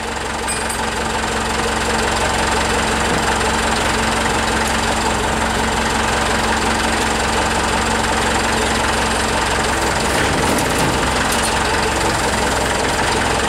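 Engine idling steadily and close by, with an even, unbroken running sound.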